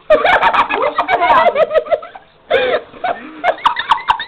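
A person laughing hard in rapid, breathy bursts, pausing about two seconds in, then laughing again in shorter bursts near the end.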